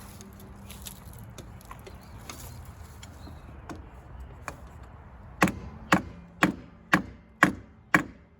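Hammer striking an EZGO ST350 golf cart's rear brake hub: seven sharp blows in a steady rhythm of about two a second, beginning a little past the middle, each with a short ring. Before them, only a low rumble and a few light clicks.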